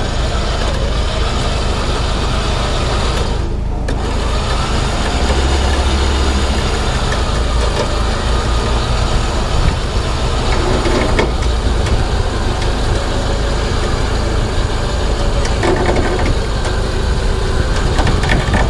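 Flatbed tow truck's engine running steadily while its winch pulls a car up the bed by a cable.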